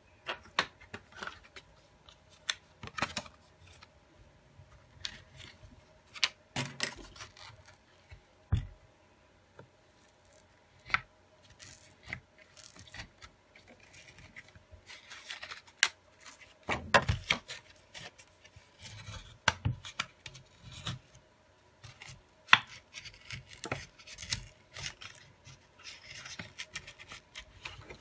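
A blade and a thin plastic pry card clicking and scraping along the edge of a Huawei Y9a's back cover as its adhesive is worked loose, with scattered taps and rubbing of hands and tools on the phone. The sounds come irregularly, busiest about halfway through.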